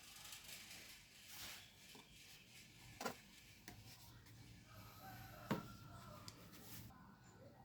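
Near silence with faint rubbing and scratching, broken by two light clicks about three and five and a half seconds in.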